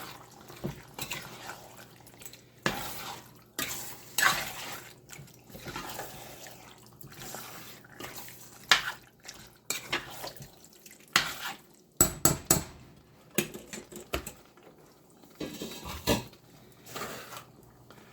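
A spoon scraping and knocking against the pot as chicken pieces are stirred in curry with added water, with liquid sloshing; a quick run of sharp clinks about twelve seconds in.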